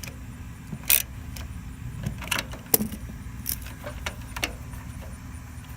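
Scattered light metallic clinks and clicks of hand tools and small hardware being handled, five or six separate strikes, over a steady low hum.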